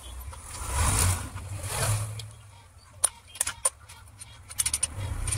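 Small metallic clicks and clinks of steel engine parts, with a run of them in the middle as gear shafts and washers are seated in a motorcycle crankcase. Low rumbling swells come and go under them.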